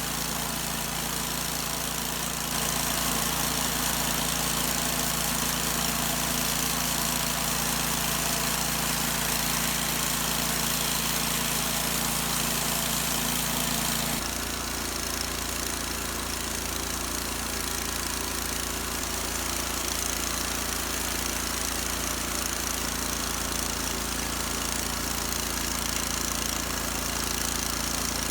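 An engine running steadily at a constant speed, with its tone changing abruptly about halfway through.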